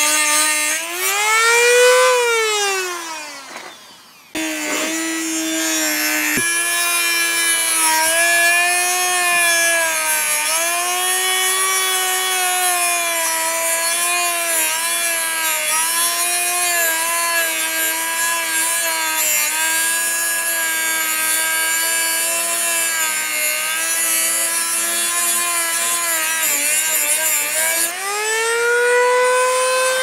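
Dremel rotary tool with a cut-off wheel grinding into a steel disc padlock, its motor giving a steady high whine. About two seconds in the whine rises, then dies away as the tool is switched off, and it starts again a moment later. It then runs on, sagging and recovering in pitch as the wheel bites the metal, and rises again near the end as it comes free of the cut.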